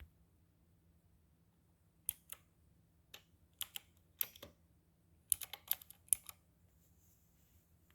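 Blue mechanical keyboard switches on a ZMX Cherry Blossom 61 clicking as keys are pressed, about a dozen clicks in short irregular runs. They start about two seconds in and stop a little after the middle.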